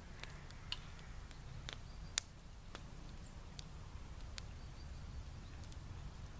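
Scattered light clicks and ticks, about eight in all, the sharpest one about two seconds in, over a faint steady low rumble.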